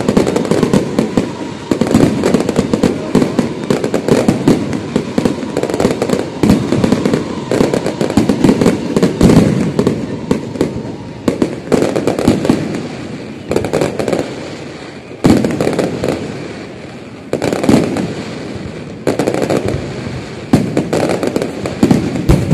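Aerial fireworks display: shells bursting in rapid, overlapping bangs and crackle. A dense, continuous barrage for about the first half, then fresh salvos every second or two with brief lulls between them.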